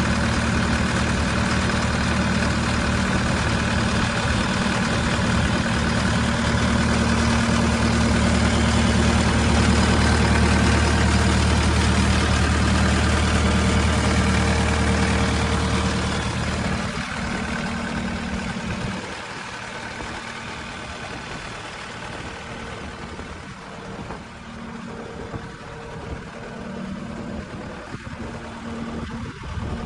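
Case SV280B skid steer's diesel engine running steadily. A bit over halfway through, its deep low hum drops away and the engine sound becomes noticeably quieter.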